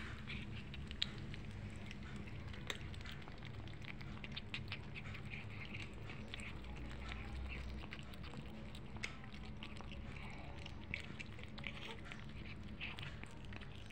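Two kittens eating food off a hard floor: a steady run of small, irregular wet chewing and mouth clicks.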